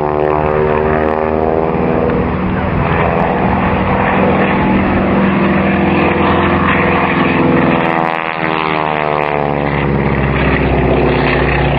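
Spartan 7W Executive's Pratt & Whitney R-985 Wasp Junior radial engine with its distinctive rasp as the aircraft flies by. The engine note falls in pitch as it goes past, then sweeps down again about eight seconds in on another pass.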